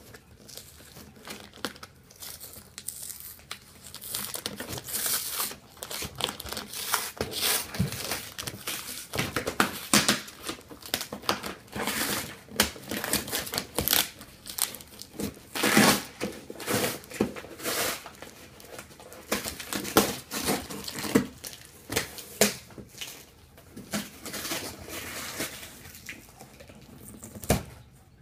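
Packaging being torn open and crumpled by hand: irregular crackling and ripping, with louder rips now and then.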